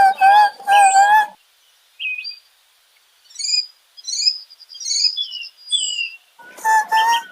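Animal calls: a few short pitched calls at the start, then a series of high, quickly sweeping chirps, then two more pitched calls near the end.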